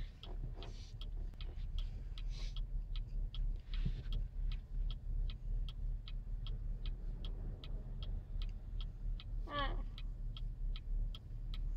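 A car's turn-signal flasher clicking steadily, about three clicks a second, over the low hum of the idling car. A short falling whimper comes near the end.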